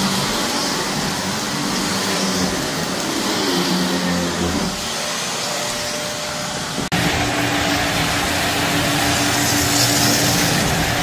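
Vacuum cleaner running on carpet with a steady motor whine and airflow noise. About seven seconds in the sound cuts out for an instant and comes back with a steadier hum.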